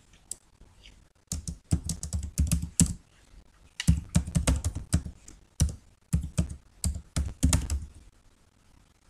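Typing on a computer keyboard: several quick bursts of key clicks with short pauses between them.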